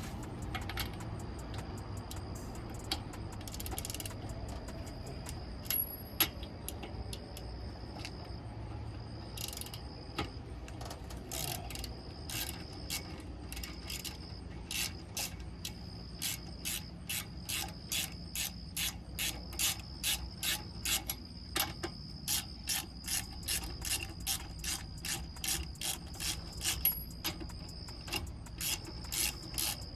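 Hand ratchet wrench clicking as a fastener is worked, irregular at first, then a steady rhythm of about two clicks a second in the second half.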